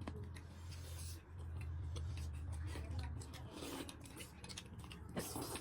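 Faint eating sounds: small clicks and smacks of someone chewing food, over a low steady hum that stops about three seconds in.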